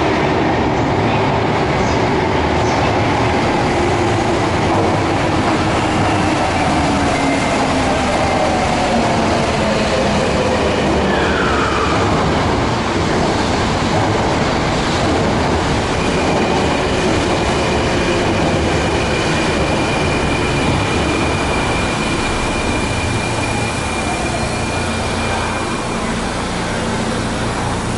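Electric commuter train pulling into an underground station and braking to a stop, with a loud, steady rumble of wheels and running gear. A whine falls in pitch partway through, and a thin high squeal is held for about ten seconds in the second half. The noise eases a little as the train comes to rest near the end.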